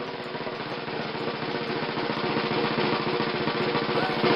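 A drum roll: fast, even strokes that build steadily in loudness.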